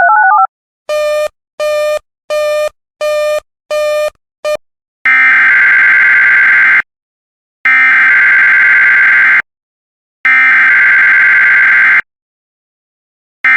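Emergency Alert System SAME header being sent. A run of six short electronic beeps is followed by three loud bursts of digital data tones, each about a second and a half long with a second's gap between them, and a brief burst starts near the end.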